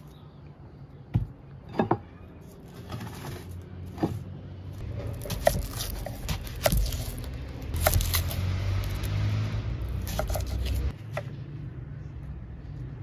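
Kitchen knife trimming, peeling and slicing an onion on a thick wooden chopping board: scattered knocks of the blade against the wood with scraping and rustling of the onion's papery skin between them. A low rumble runs underneath from about five seconds in until near the end.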